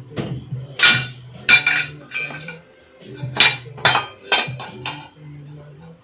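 Flat steel bar stock clanking against a steel pipe and tools on a wooden board as it is handled and worked: about half a dozen sharp metallic clanks, each with a short ring.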